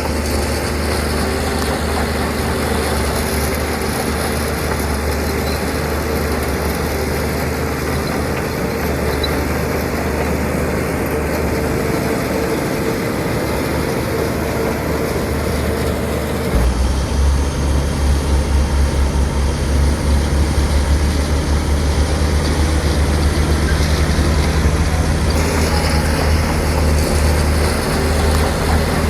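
Heavy diesel earthmoving machinery running steadily. About halfway through, the sound switches abruptly to a louder, low, throbbing engine note.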